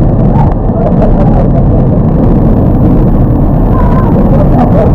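Loud, muffled, steady rush of water from a waterfall, close to the microphone, with a faint voice near the end.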